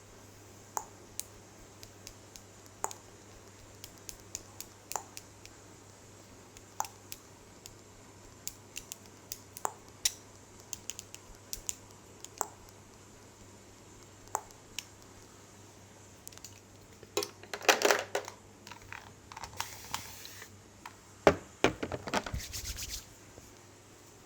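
Close-miked sharp clicks and ticks, scattered about one a second, then two spells of dense crackling and rustling, the first about two thirds of the way in and the second near the end, which opens with a loud sharp crack.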